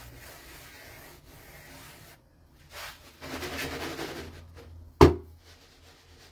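Hands rubbing and smoothing a round of semolina bread dough on a board dusted with dry semolina: a soft, grainy rubbing. One sharp knock comes about five seconds in.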